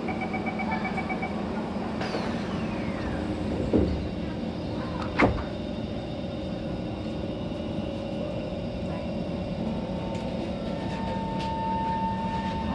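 Rapid door-closing warning beeps, then the sliding doors of an SMRT Kawasaki C151 train shutting with two knocks, the louder about five seconds in. Near the end the train pulls away and a steady traction-motor tone comes in over the car's running rumble.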